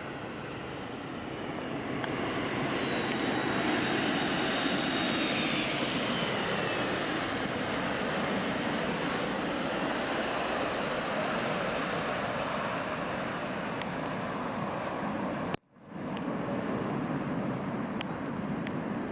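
BAE 146-200 jetliner's four turbofan engines as it comes in to land and passes close by: a loud rushing jet roar with high whines that fall in pitch as it goes past. The sound cuts out for an instant near the end, then carries on.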